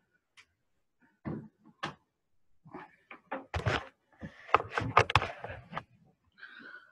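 Scattered knocks, clicks and rustling from handling a laptop charger and its cable while plugging it in, with a busier run of clatter around the middle.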